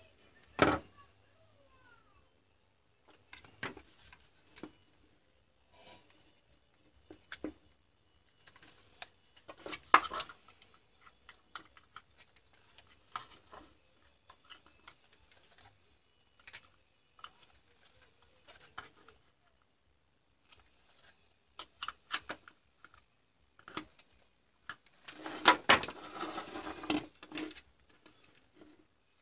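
Hands handling a plastic cordless-drill battery case and a wired pack of 18650 lithium-ion cells: scattered clicks, taps and knocks of hard plastic, with a longer bout of scraping and rattling near the end.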